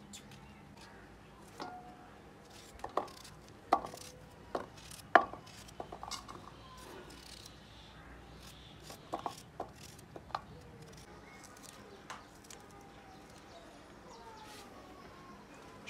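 Scattered sharp knife clicks and taps of potatoes being peeled and cut by hand, irregular and a second or so apart, thinning out after about ten seconds.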